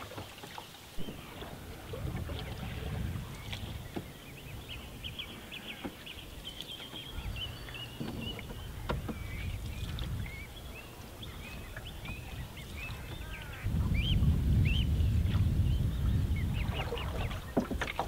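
Birds chirping and peeping in many short high calls, with wind rumbling on the microphone that grows much stronger about two-thirds of the way through.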